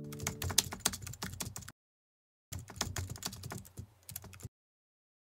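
Computer-keyboard typing clicks in two quick runs of about two seconds each, with a short break between, each cutting off abruptly.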